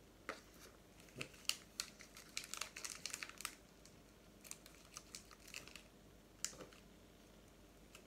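Hands handling plasticine and small objects on a tabletop: a quick run of light clicks and crinkles, thickest in the first few seconds, then a few scattered ones, the last a little sharper.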